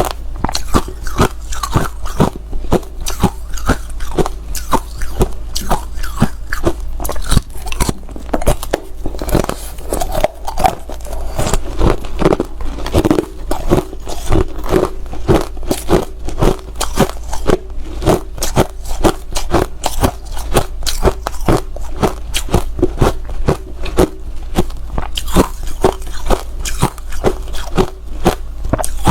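Hard ice being bitten and chewed close to the microphone, a rapid run of sharp crunches several times a second.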